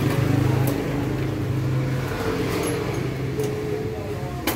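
A motor vehicle engine running steadily, with a sharp click near the end.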